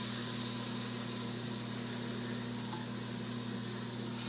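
Faint, steady sizzling hiss of cooking oil heating for browning in an Elite 8-quart electric pressure cooker, over a steady low hum.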